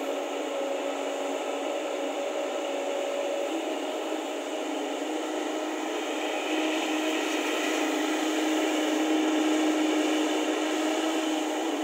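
JCB tracked excavator's diesel engine and hydraulics working under load as it digs and swings a full bucket: a steady drone with a faint whine that changes a little in pitch, growing somewhat louder about two-thirds of the way through as the boom lifts and slews.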